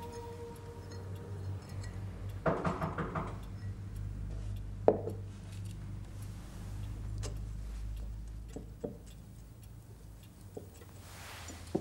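Glassware clinking and knocking at a drinks cabinet: a quick run of small clinks, then one sharp ringing knock of glass set down about five seconds in, and a few lighter taps later, over a low hum.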